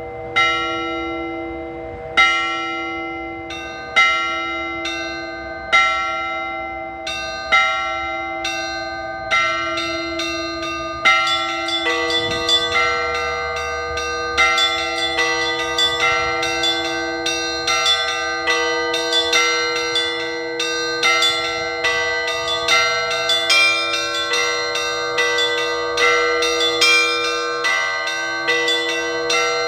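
Orthodox church bells ringing: at first a single bell struck about every two seconds, each stroke left to ring on. About eleven seconds in, smaller, higher bells join in a quicker, denser pattern over the deeper bell.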